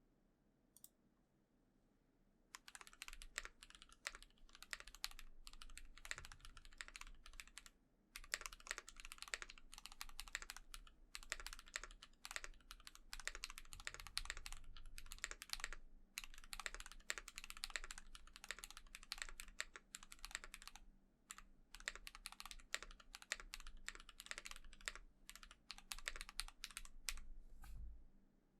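Typing on a KBD8X MKII custom mechanical keyboard with lubed SP-Star Magic Girl switches, a polycarbonate plate, PBT keycaps and foam in the case and under the plate: fast, steady keystrokes with a muted, marbly sound. The typing starts a couple of seconds in and pauses briefly twice.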